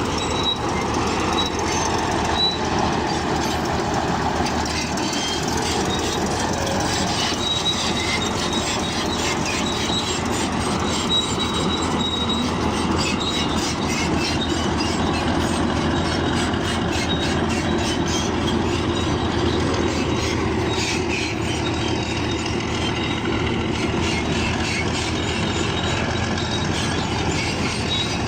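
Bulldozer working: diesel engine running steadily under load while its steel crawler tracks clank and squeal, with rapid metallic clicking and short, repeated high squeaks.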